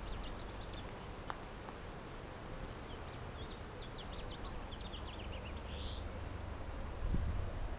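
Small birds chirping in quick runs of short, high, falling notes, with one brief buzzy note about six seconds in, over a steady low outdoor rumble that swells near the end.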